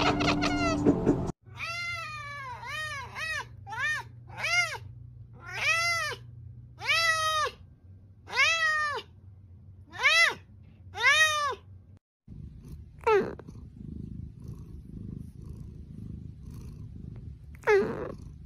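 A domestic cat meowing over and over, about ten meows roughly a second apart, each rising and then falling in pitch. Then a low steady purr from a sleeping cat, broken twice by a short call that falls in pitch.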